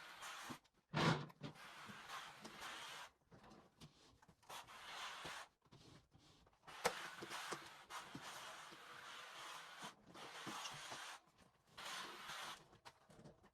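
Steam mop being pushed back and forth over a floor: repeated swishing strokes with short pauses, and a sharp knock about a second in.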